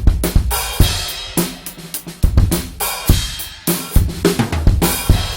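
Drum kit played with a set of custom hand-hammered, lathed, soil-toned cymbals: a busy run of drum and cymbal strikes with the cymbals ringing between them, closing on loud hits near the end.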